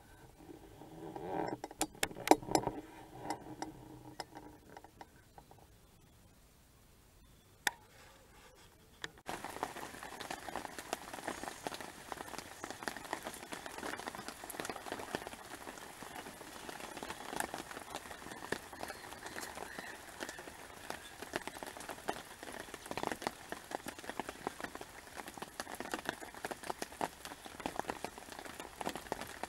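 A few handling knocks and rustles near the start, then, about nine seconds in, rain begins to patter steadily, a dense spread of small raindrop ticks.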